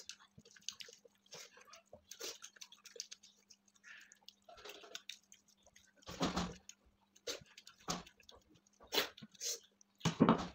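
Fingers mixing rice and curry on paper plates: soft squishes and small clicks, with a few louder handling noises, the loudest near the end as a paper plate of curry is lifted and tipped. A faint steady hum sits underneath.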